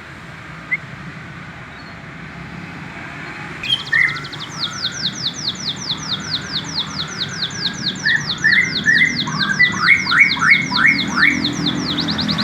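Young canary practising its song, still learning to sing: a faint chirp early on, then about four seconds in a long rapid trill of high, falling notes, about six a second, with lower warbled phrases mixed in.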